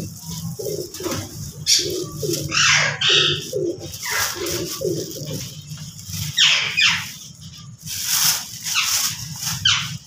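Pigeons cooing, a run of low repeated coos, mixed with sharper bird calls that sweep down in pitch a few times in the second half.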